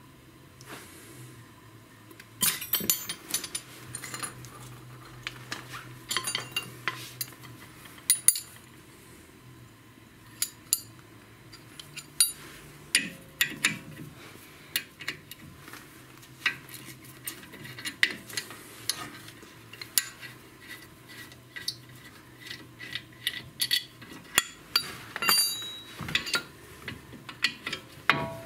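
Steel wrench clinking and tapping against the front brake caliper's guide-pin bolts as they are worked loose: a long run of irregular sharp metallic clicks and clinks, with a faint low hum underneath.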